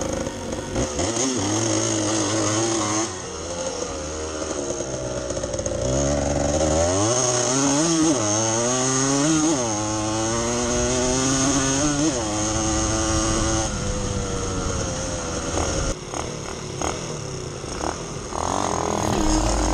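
Dirt bike engine running under way, its pitch climbing and dropping several times through the middle with the throttle.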